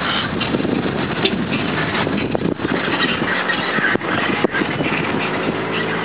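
Steady rushing noise of a jet airliner's engines on the distant runway, mixed with gusts of wind on the microphone.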